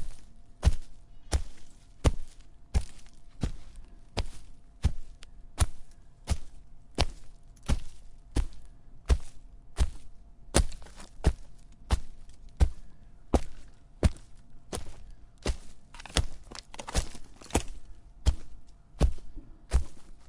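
Footsteps walking at a steady pace, about three steps every two seconds, each a short, sharp impact.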